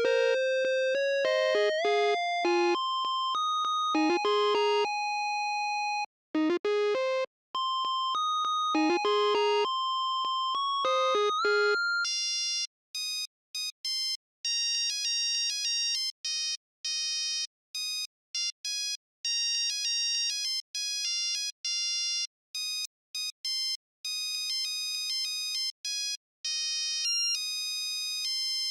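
Electronic synthesizer melody of quick, clean beeping notes, like a ringtone. About halfway through it changes to a higher, sparser run of short notes with brief gaps between them.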